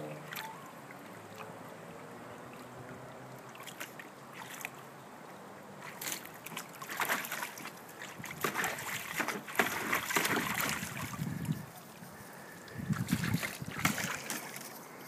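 Water splashing and sloshing in a plastic kiddie pool as dogs wade in it and a German shepherd laps at the water. The splashes come in irregular bursts from about six seconds in, busiest in the middle and again near the end.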